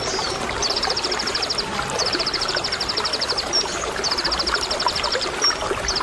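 Van Hasselt's sunbird (konin) singing its rapid high trill, the 'tembakan' song: four trills of evenly spaced quick notes, each a second or so long, with short high chirps between. Running water flows steadily underneath.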